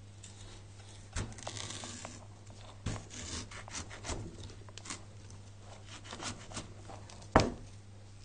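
Large kitchen knife cutting through a raw butternut squash on a wooden cutting board: scraping as the blade works through the hard flesh, broken by a series of cracks and knocks, the loudest a sharp knock on the board about seven seconds in.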